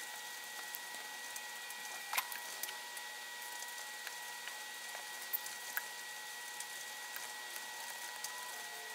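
Light, scattered ticks and taps of a soldering iron working its way along the pins of a surface-mount chip, over a faint steady hiss with a thin high whine.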